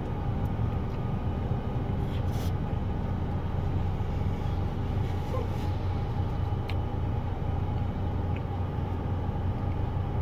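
Steady low rumble of a car engine idling, heard from inside the cabin, with a few faint clicks.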